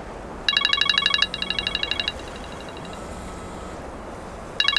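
Mobile phone ringing with a rapidly trilling electronic ring tone for an incoming call. A loud ring starts about half a second in and falls to softer pulses, and the ring starts again near the end.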